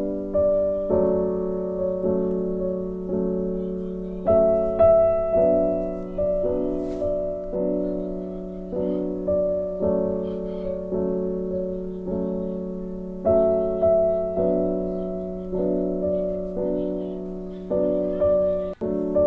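Background music: a slow piano melody, notes struck about once a second and left to ring and fade.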